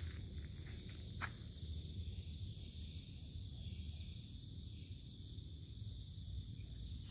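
Steady, high-pitched chorus of night insects such as crickets, over a low rumble, with a single short tap about a second in.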